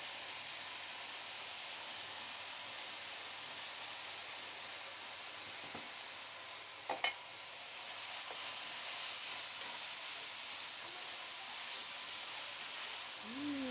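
Shrimp and noodles sizzling in oil in a frying pan, a steady hiss as they are stirred with a spatula. A single sharp knock about seven seconds in.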